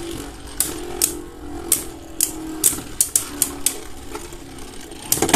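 Two Beyblade Burst spinning tops battling in a clear plastic stadium: about a dozen sharp plastic clacks as they strike each other and the wall, several in quick succession near the middle and a fast cluster near the end, over a faint steady whir of the spinning tops.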